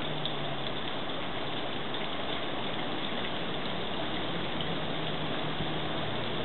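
Steady rush of splashing water from a backyard garden fountain, with a faint low hum that comes and goes.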